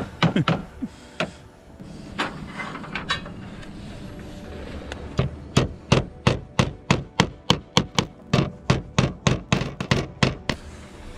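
Hammer nailing slate scales: a few blows at the start, then from about five seconds in a fast, even run of sharp strikes, about five a second, that stops shortly before the end.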